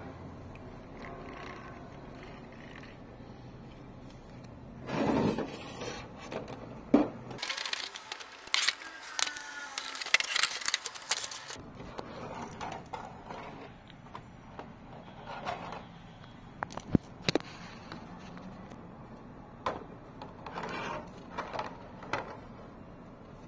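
Toy packaging being handled and opened: irregular scraping and crackling with sharp clicks. It starts about five seconds in, is busiest in the middle, and comes back in shorter bursts later.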